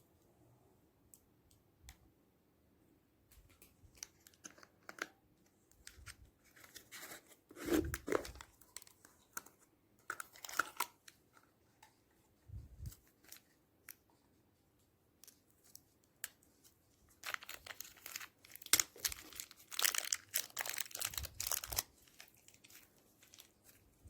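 Slime being worked and mixed by hand: irregular runs of small clicks, pops and crackles with soft squishes, in bursts, busiest in the last third.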